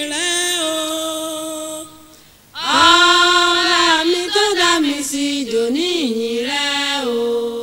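Women singing a Yoruba gospel song unaccompanied, in long held notes. The singing drops away for about half a second around two seconds in, then comes back louder.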